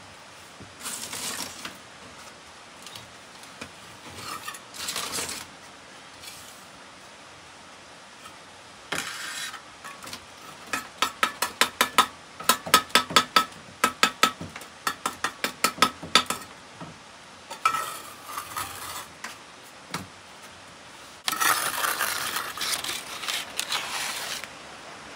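Metal scraping strokes, with a run of quick, ringing metallic taps in the middle, about four a second, louder than the scraping. A last longer scrape starts suddenly near the end.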